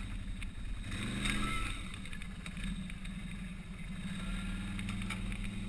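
Can-Am ATV engine running steadily at low revs while crawling over a steel-grate ramp, with a short blip of throttle about a second in and a few light knocks.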